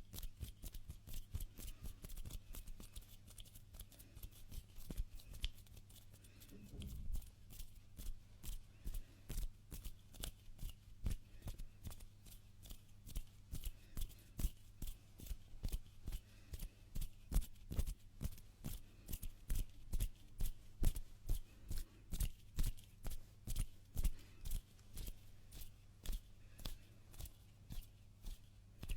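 Close-miked ASMR hand sounds: hands rubbing and brushing together in quick repeated strokes, about two crisp swishes a second. A faint steady low hum sits underneath, and there is a brief low thud about seven seconds in.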